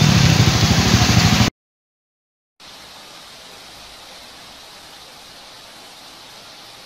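Heavy rain falling steadily on mango trees, an even hiss. For the first second and a half it is louder street noise of heavy rain with motor vehicle engines. That cuts off suddenly into about a second of silence before the rain hiss begins.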